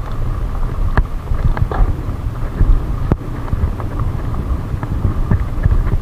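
Commencal Meta HT chromoly hardtail mountain bike rattling over a rough dirt trail, with wind buffeting the microphone as a low rumble. Sharp knocks from the bike jolting over bumps stand out about a second in and again about three seconds in.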